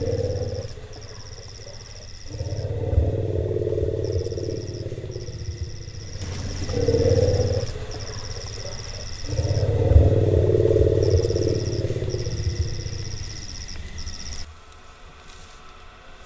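Night insects trilling in repeated bursts a second or two long, over a louder deep rumbling that comes and goes in long stretches and stops about fourteen seconds in.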